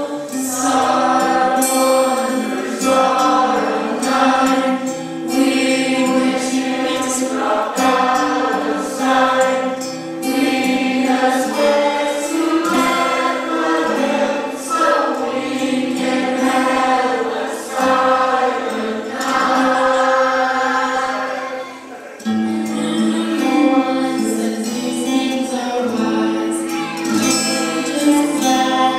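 A group of voices singing a song together over musical accompaniment, with a brief break about 22 seconds in before the singing picks up again.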